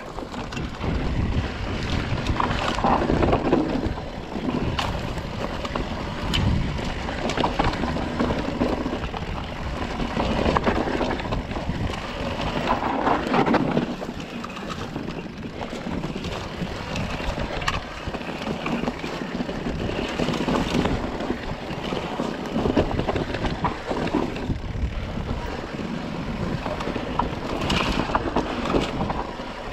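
Electric mountain bike riding along a rough dirt singletrack: wind buffeting the microphone over tyre noise, with scattered clicks and rattles from the bike.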